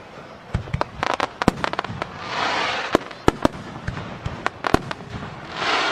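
Aerial fireworks shells bursting in a rapid, irregular run of sharp bangs, some in quick clusters. A hissing crackle swells up for about a second twice, near the middle and at the end.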